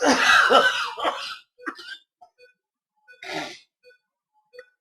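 A sedated patient breathing noisily through a collapsing upper airway: a loud snorting snore for about the first second, then a shorter, softer breath about three seconds in.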